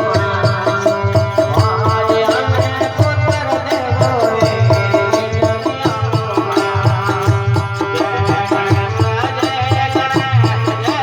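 Devotional bhajan music: a hand drum playing a fast, steady rhythm under a gliding melodic line.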